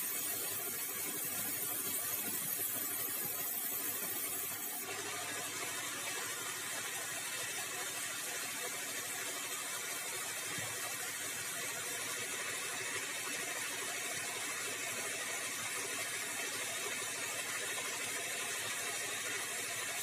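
Band sawmill running as a bengkirai timber beam is fed through it on a rail carriage, the blade cutting the wood with a steady mechanical noise. The sound changes and gets brighter about five seconds in.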